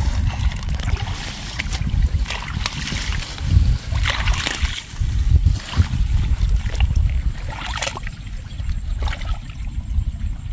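Gloved hands groping and sloshing through thick mud and shallow muddy water, with irregular wet splashes, the biggest about four seconds in, as the mud is felt through for hidden fish.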